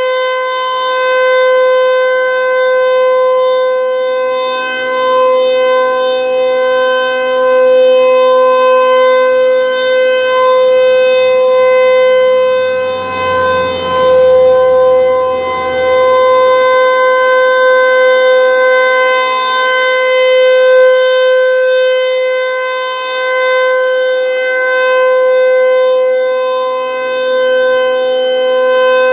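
Federal Signal 508-128 outdoor warning siren sounding its steady Alert tone: one loud, unwavering pitch whose loudness swells and fades slowly every several seconds.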